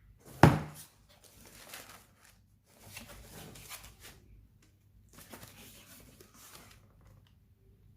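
Shoe packaging being handled: a sharp knock about half a second in, then spells of paper rustling and crinkling.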